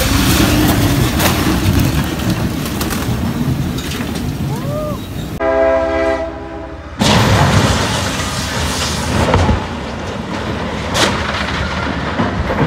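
A freight locomotive's multi-chime air horn sounds one steady chord for about a second and a half. A sudden loud, harsh crash noise cuts it off: the train striking an oversize-load trailer at a crossing. There is a sharp bang a few seconds later, and loud rushing noise before the horn.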